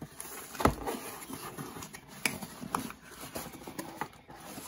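Cardboard box being handled and opened by hand: a knock about half a second in, then the cardboard flaps being pulled open and folded back with rustling, scraping and a few light clicks.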